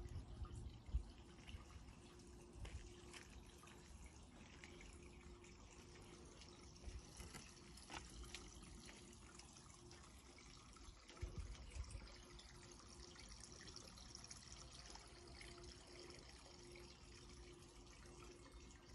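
Near silence: faint outdoor garden ambience, broken by a few soft low bumps, the sharpest about a second in and a small cluster near the middle.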